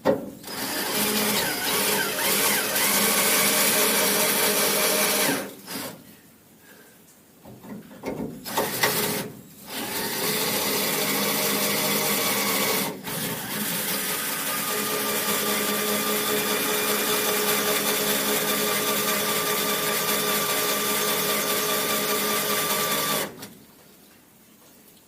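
Electric drill drilling out a rusted door-lock screw. It runs for about five seconds, gives a couple of short bursts, then runs steadily for about thirteen seconds before stopping abruptly near the end.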